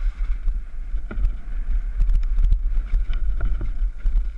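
Wind buffeting the microphone of a chest-mounted action camera on a mountain bike descending a dirt singletrack, a constant low rumble and rush. Through the middle, a quick run of knocks and rattles from the bike jolting over the rough trail.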